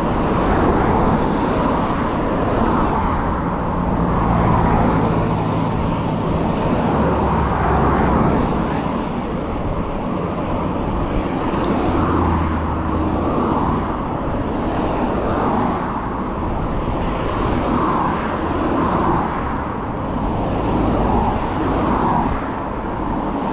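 Steady rush of wind and road noise on a bicycle-mounted action camera while riding, with a motor vehicle's low engine hum passing at times.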